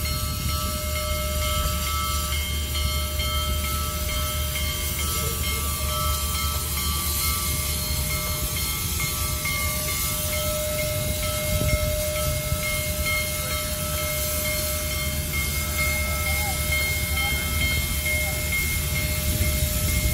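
Union Pacific Big Boy No. 4014, a 4-8-8-4 articulated steam locomotive, rolls slowly past with a steady low rumble and hiss. Several steady high tones run over the top.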